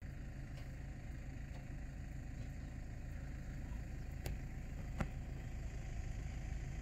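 Vehicle engine idling, a steady low rumble, with two short clicks a little after four and five seconds in.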